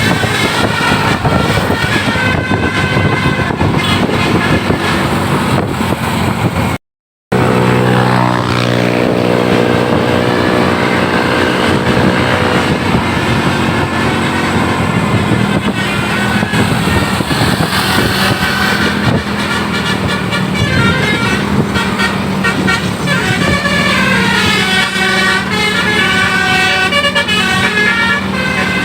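A bus's multi-tone 'telolet basuri' musical horns playing tunes, the pitch stepping from note to note over road and vehicle noise. The sound drops out completely for about half a second roughly seven seconds in.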